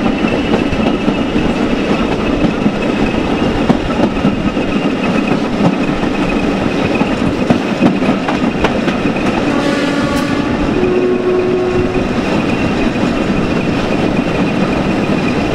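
English Electric Class 20 diesel locomotive on the move: a steady mix of engine and wheels on the rails. About two-thirds in, a horn sounds briefly in two notes, a lower one and then a higher one.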